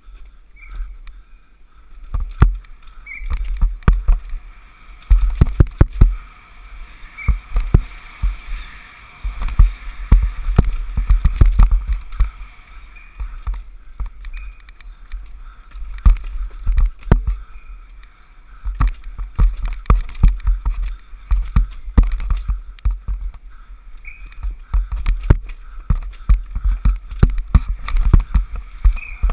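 Wind buffeting a helmet-mounted action camera's microphone during a fast downhill mountain-bike descent, in heavy surging rumbles, with the bike rattling and clattering over the rough trail in many sharp knocks.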